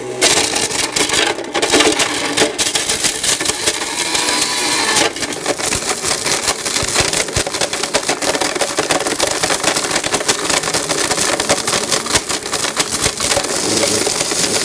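Blendtec blender running at full speed, smashing CDs, a DVD and a book: a loud, grinding clatter of hard plastic shards hitting the jar, dense with sharp cracks throughout.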